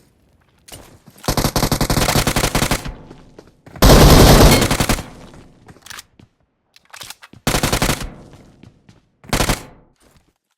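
Several bursts of rapid, closely spaced sharp bangs, with one louder, deeper blast about four seconds in.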